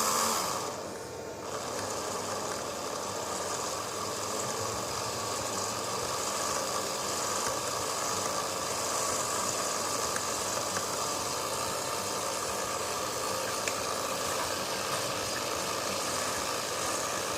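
Home-made mini lathe driven by a cordless drill motor and gearbox, running steadily while drilling out a small lock pin. The sound dips briefly about a second in, then runs on evenly.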